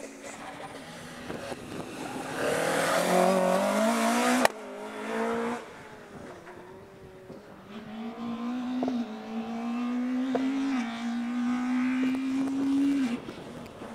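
Rally car engine on a special stage, unseen, revving hard with its note rising through the gears. It cuts off sharply on a lift about four and a half seconds in, then climbs again and drops off near the end.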